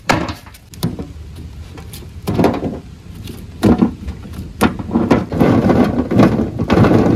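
Moringa drumsticks knocking and clattering on a large metal tray: several separate knocks as bundles are set down and handled, then a denser clatter over the last two seconds as the pods are spread out by hand.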